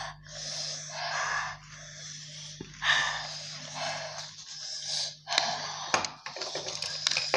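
People breathing hard through the mouth, hissing and gasping air in and out against the burn of 3x-spicy Korean ramen, in a series of short breathy rushes. A few light clicks come in the second half.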